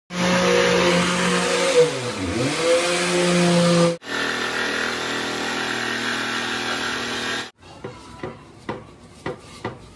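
Electric jigsaw cutting a wooden board. Its motor runs steadily, its pitch dips briefly under load about two seconds in, and it stops abruptly; a second cut follows. For the last couple of seconds, quieter irregular brush strokes on the board.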